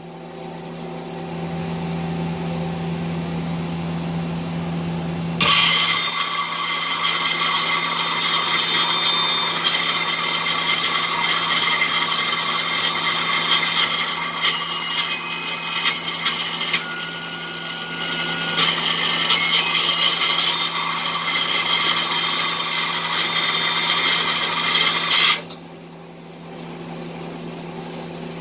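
Okuma LB4000 CNC lathe running under power with a steady low hum, then its drive motor spinning up about five seconds in with a rising whine. It holds a high, many-toned whine, steps down in pitch and back up midway, and stops suddenly about three seconds before the end.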